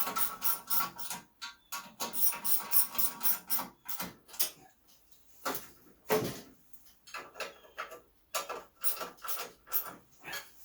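Hand socket ratchet clicking in quick runs of about five clicks a second, with pauses and a few knocks between runs, as screws are driven back in.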